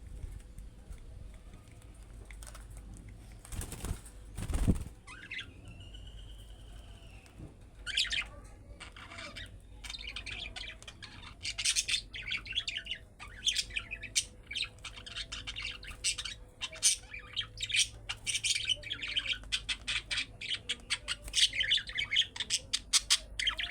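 Budgerigars chirping and chattering. A few separate chirps come first, then from about eight seconds a dense, rapid warble runs on. A short burst of noise comes about four seconds in.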